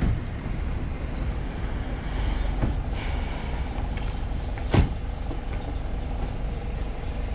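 Steady rumble of road traffic, swelling as a vehicle passes about two seconds in, with a sharp knock just before the five-second mark.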